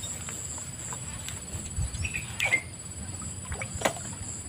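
A bamboo lift-net pole and frame creaking and knocking as the net is lowered into the water, with a short squeak about halfway through and a few light knocks. A steady high insect drone runs underneath.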